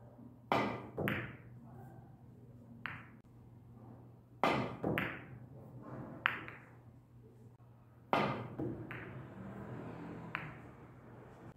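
Carom billiard balls clicking: the cue tip striking the cue ball, then hard knocks of balls against each other and against the table's cushions in a bank shot, about eight sharp clicks spread out over several seconds.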